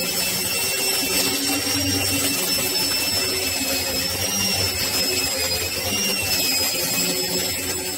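Electric random orbital sander with a dust-extraction hose, running steadily as it is worked across the top of a walnut slab: a constant high whine over a low hum.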